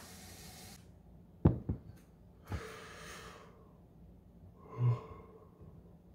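A kitchen tap runs and is shut off about a second in. Then a glass jar is set down on a stone countertop with two sharp knocks close together and a third a second later. Near the end comes a short, low breath sound.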